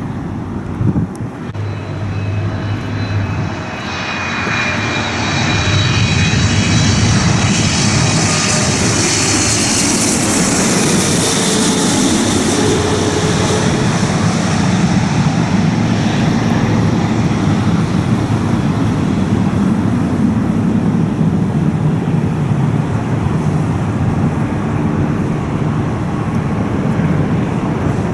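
Jet airliner's engines passing close, a loud roar that builds over the first few seconds and then holds, with high whining tones that slide down in pitch as the aircraft goes by.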